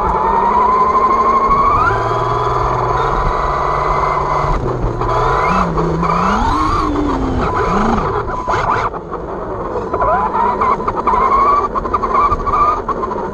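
Electric motor of a Losi 22S-SCT RC short-course truck whining as it drives on pavement, its pitch rising with each burst of speed, several times, over a low steady rumble.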